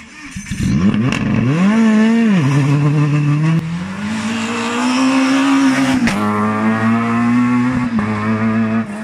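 Rally car engines revving hard through the gears, the pitch climbing and dropping at each shift. The sound changes abruptly twice as different cars are heard.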